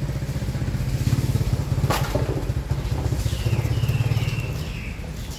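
An engine running with a low, pulsing rumble that swells over the first second and fades near the end, with a sharp click about two seconds in.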